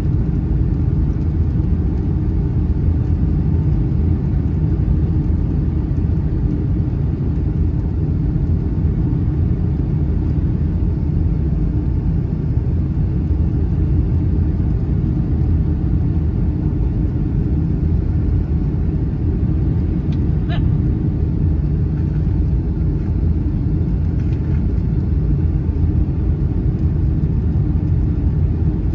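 Steady low rumble of a Boeing 757-200's engines and airflow heard inside the passenger cabin on the approach to landing, flaps extended. A brief high tone sounds once about twenty seconds in.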